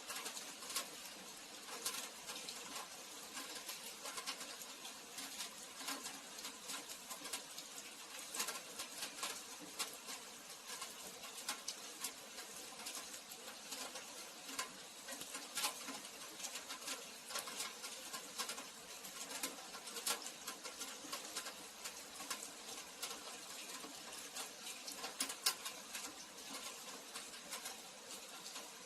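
Steady rain falling, a constant hiss with many irregular sharp taps and drips of drops striking nearby surfaces.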